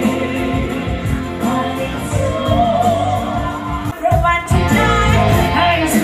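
Live stage-show music from a band with a singer, who holds a long note from about four seconds in.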